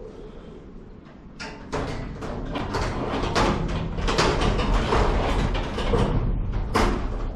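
Strong wind gusting on the microphone, rising about a second and a half in, with repeated rattling and knocking throughout.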